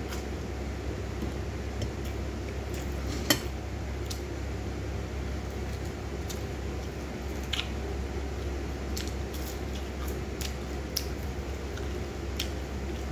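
Someone eating rice and fried fish by hand from a ceramic plate: scattered small clicks and taps, one sharper click about three seconds in, over a steady low hum.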